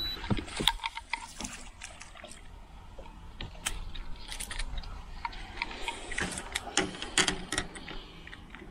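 Irregular small clicks and knocks mixed with water splashing, the sounds of fishing gear being handled in a small boat on the water.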